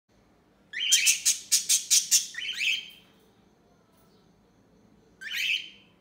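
Small pet parrots squawking: a quick run of loud, harsh calls lasting about two seconds, then a single rising call near the end.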